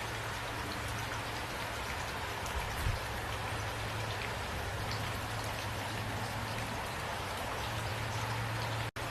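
Steady rain falling, with scattered individual drops ticking on a surface over a low steady hum. A single low thump comes about three seconds in, and the sound cuts out for an instant near the end.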